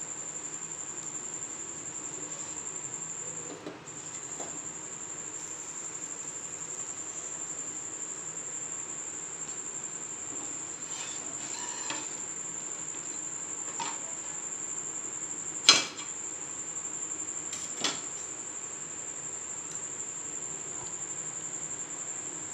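A steady high-pitched whine runs throughout, breaking off briefly about four seconds in. Over it, a metal spatula knocks and scrapes on a flat pan as bread slices are turned, with a sharp loud click a little before 16 seconds and a smaller one about two seconds later.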